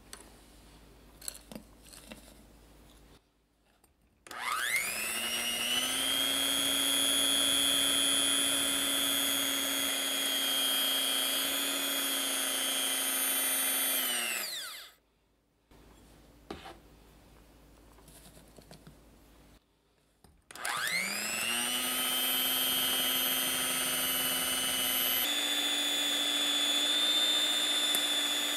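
Electric hand mixer whipping egg whites into meringue in a glass bowl: it runs twice, for about ten and then eight seconds, each time whining up to speed and winding down again, with a few light taps in the pauses. During the second run the pitch steps up slightly near the end.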